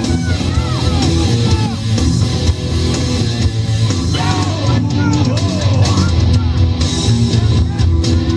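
Rock music with a singer.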